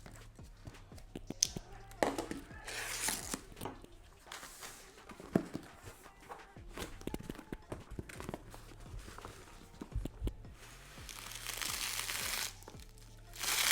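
Shipping packaging being torn open and crinkled by hand: several noisy rips and rustles of paper or plastic wrapping, with small handling clicks between them. The longest rustle comes near the end.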